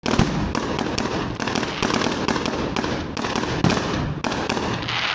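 Fireworks going off in quick succession: many sharp bangs, several a second, over a dense continuous crackle.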